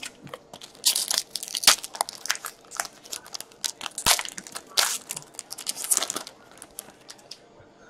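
Foil wrapper of a hockey trading-card pack being torn open and crinkled by hand, a dense run of irregular crackles that thins out near the end.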